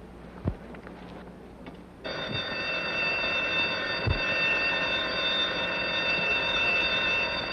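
Electric alarm bell ringing without a break, starting suddenly about two seconds in. Before it there are two faint low knocks.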